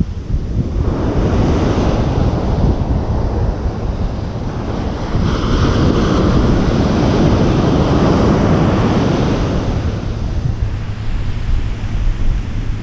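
Ocean surf breaking and washing up a sandy beach, swelling about a second in and again more strongly from about five to ten seconds, with wind buffeting the microphone.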